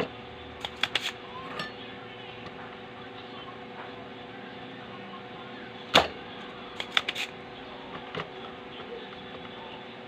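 Spring-loaded desoldering pump firing with one loud sharp snap about six seconds in, with smaller clicks of it being cocked and handled near the start and around seven to eight seconds, as solder is sucked from the leads of the burnt power transistors. A steady low hum runs underneath.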